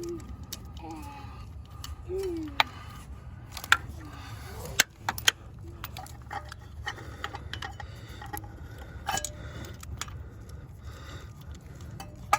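Sharp metallic clinks and clicks of hand tools working a spark plug out of the engine, a handful of loud ones in the first half and one near the end, over a steady low hum.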